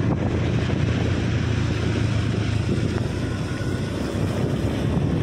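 Motorcycle engine running at a steady cruise with wind buffeting the microphone.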